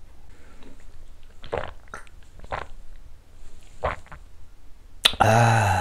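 A man drinking a shot of soju: small wet mouth and swallowing sounds at intervals, then a sharp click and a drawn-out 'kyaa' of relief after the shot, about five seconds in.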